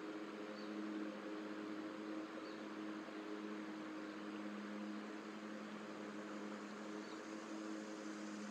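Steady background hum with an even hiss over it, picked up by an outdoor microphone; the eagle makes no call.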